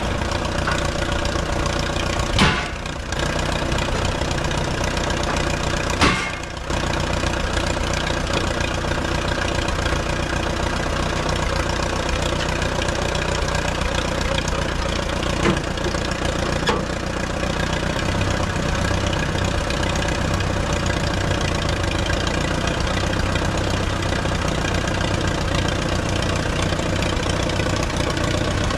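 A 1947 Case VAC tractor's four-cylinder overhead-valve engine idling steadily, back running after decades dormant. Two sharp bangs sound about two and a half and six seconds in, each followed by a brief dip in the engine sound, with two fainter ones later.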